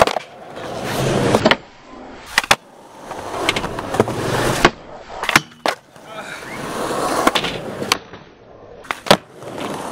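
Skateboard wheels rolling on concrete, the rolling noise swelling and fading over several runs, broken by about a dozen sharp pops and clacks of the board's tail and landings.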